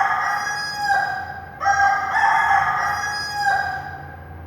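Rooster crowing twice: the tail of one cock-a-doodle-doo ends about a second in, and a second full crow of about two seconds follows.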